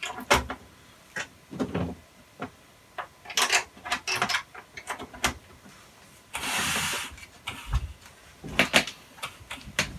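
Scattered clicks and knocks of speaker wires being fitted to the terminals of a Marantz NR-1501 AV receiver, with a scrape about a second long, about six and a half seconds in, as the metal chassis is shifted on the bench, then a low thump.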